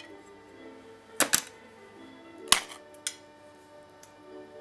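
Sharp snaps and clinks of mirror glass breaking off along a score line as it is worked with pliers: two close together about a second in, the loudest about two and a half seconds in, and a fainter one soon after. Background music plays throughout.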